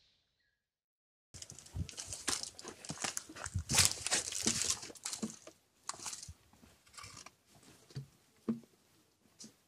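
Close crinkling and crunching rustle full of sharp crackles, like stiff material being handled or crushed. It starts abruptly about a second in, is loudest for the next few seconds, then thins to scattered crackles.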